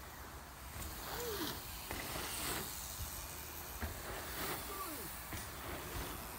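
BMX tyres rolling and skimming over packed-dirt jumps, a rustling hiss that swells twice, with one sharp knock about four seconds in.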